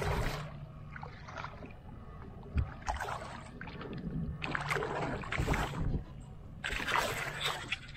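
A hooked snook splashing and thrashing at the water's surface as it is landed: five irregular bursts of splashing over a steady low rumble of water against the hull.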